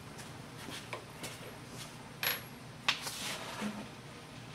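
Metal tools clinking and tapping as they are handled and fitted at a milling machine's spindle: a few sharp, separate metallic clinks, the loudest two about two and three seconds in, over a steady low hum.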